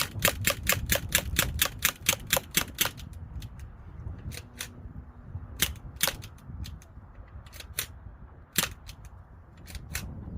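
Umarex Legends MP40 CO2 BB submachine gun firing a quick full-auto burst of sharp cracks, about five or six a second for roughly three seconds. Scattered single cracks follow until the magazine runs empty.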